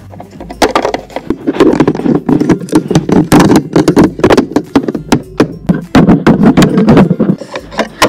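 A Littlest Pet Shop plastic toy figure knocking and tapping against a wooden dollhouse staircase and floor, being walked up to a room. It makes a fast, uneven run of clattering clicks and knocks, mixed with handling rustle.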